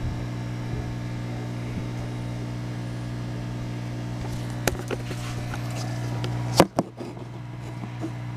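Steady low electrical hum with a few small clicks, then two sharp knocks close together about six and a half seconds in from the camera being handled.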